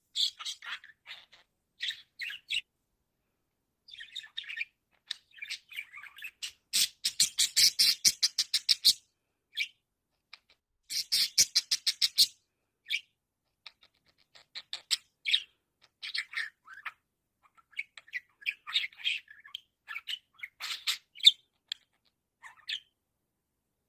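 A budgerigar chattering and warbling in short scattered chirps, with two runs of rapid clicking chatter a few seconds in and near the middle.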